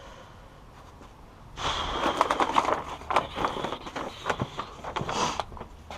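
Foil-backed Dynamat Extreme sound-deadening sheet being handled, crinkling and rustling with sharp crackles, starting about one and a half seconds in and dying down near the end.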